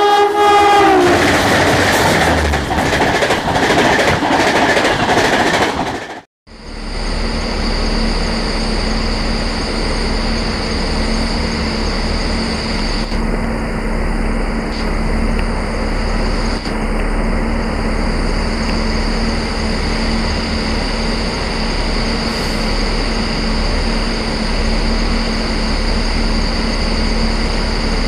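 A WAG-7 electric locomotive's horn sounds and falls away about a second in, followed by the rushing, clattering noise of the passenger train on the rails. After a sudden cut, a steady low hum with a constant high whine runs on.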